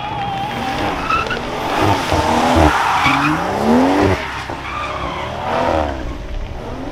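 A car drifting round a roundabout: the tyres screech as they slide while the engine revs up hard three times, each rise in pitch cut off sharply.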